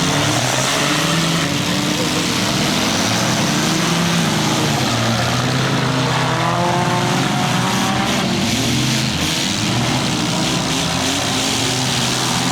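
Several compact cars' engines revving and running at once, their pitches rising and falling over one another, in a demolition derby.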